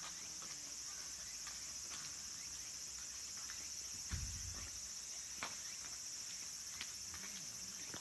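A chorus of cicadas calling in a steady high-pitched drone. A few soft thumps, the loudest about halfway through.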